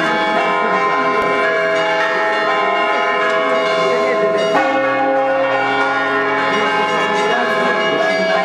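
Church bells ringing a rinterzo, the central Italian festive peal of swinging bells, with the bells of two towers overlapping in a dense, continuous ringing. A deeper bell sounds about four and a half seconds in.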